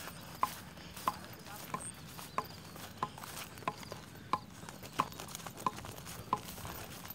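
Footsteps at an even walking pace, about three steps every two seconds, each one a short sharp tap.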